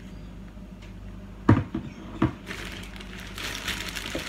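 Two sharp knocks a little under a second apart as cans of Spam are handled, then a plastic shopping bag rustling and crinkling.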